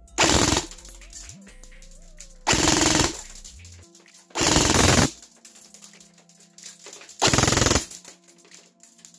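Airsoft M4 electric gun on an 11-volt battery firing four short full-auto bursts through a chronograph, at about 21 rounds per second.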